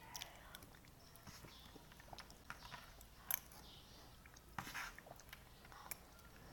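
Faint close-up chewing of noodles: soft wet mouth sounds and small clicks, with a louder smack or slurp about four and a half seconds in.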